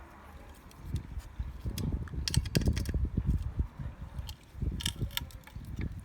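Irregular metal clicks, clinks and knocks from hand tools and parts being handled during mini moto engine assembly, busiest around the middle.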